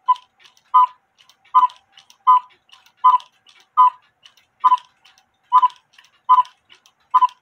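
A cuckoo clock mechanism beating in a steady rhythm, one short sharp beat about every three-quarters of a second.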